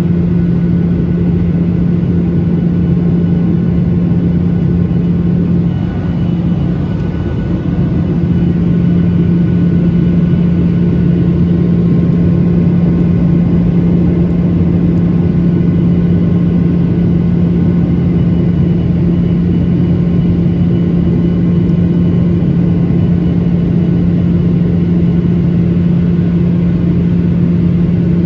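Boeing 737-900ER airliner in flight, its CFM56 jet engines and airflow making a loud, steady rumble with a constant low hum, as heard in the cabin.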